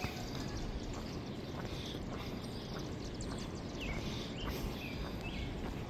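Footsteps on an asphalt road, with birds chirping at intervals.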